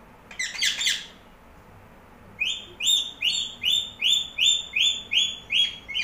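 Indian ringneck parakeet calling: a brief cluster of high chirps, then about two seconds in a run of about ten sharp, evenly repeated calls, about three a second.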